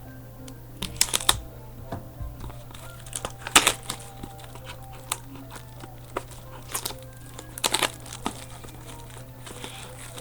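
Trading-card box and its wrapping being opened by hand: a handful of sharp crinkles and snaps a second or two apart, over faint background music.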